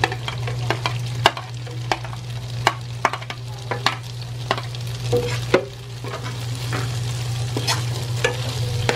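Metal spoon scraping and clinking against a frying pan as chopped vegetables and tofu are stirred, over a light sizzle of frying. A steady low hum runs underneath.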